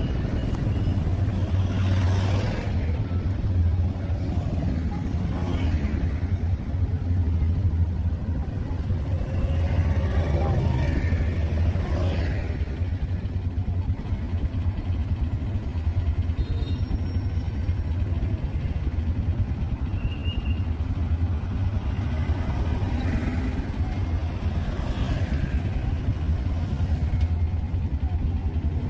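Steady low engine hum from a vehicle in street traffic. Motorbikes and cars pass close by several times, their noise swelling and fading about two seconds in, around six, around ten to twelve, and again near twenty-four seconds.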